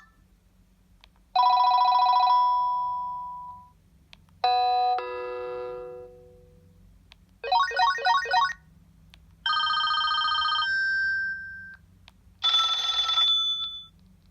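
Panasonic KX-TG8521 cordless phone handset playing five different electronic ringtones in turn, each a second or two long with short gaps between them. Among them are a two-note chime stepping down in pitch and a quick run of four rising warbles.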